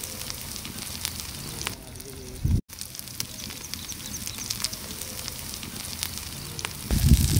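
Snakehead fish tikki shallow-frying in oil, a steady sizzle with scattered crackles and pops. The sound drops out for an instant about two and a half seconds in, and a louder low rumble comes in near the end.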